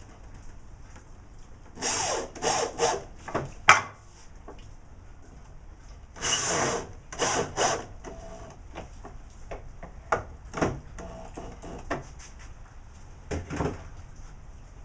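Corded electric drill run in several short bursts, working into a hardwood box side, with a sharp knock a little before the middle and a few lighter wooden knocks of handling later on.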